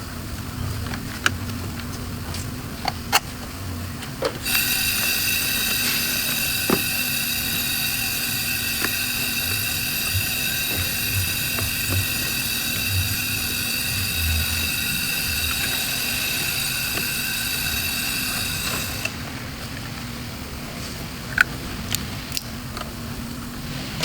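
A steady high-pitched mechanical whine that starts abruptly a few seconds in and cuts off about fifteen seconds later, with scattered clicks and knocks of tools and parts being handled before and after it.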